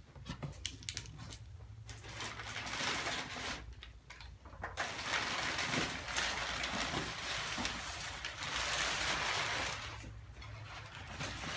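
Crumpled brown kraft packing paper rustling and crinkling as it is pulled out of a cardboard box, in two long stretches with a brief pause between, easing off near the end.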